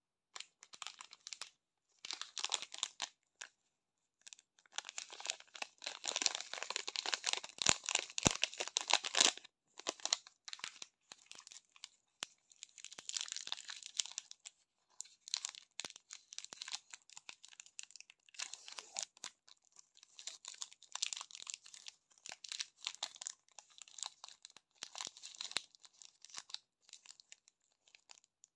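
Shiny plastic wrapper of a Snickers Minis chocolate bar being crinkled and torn open by hand, in irregular bursts of crackling, the densest and loudest stretch about a third of the way in.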